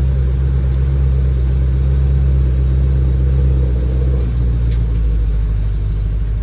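2020 Ford Shelby GT500's supercharged 5.2-litre V8 idling with a deep, steady rumble. The note shifts slightly about four seconds in.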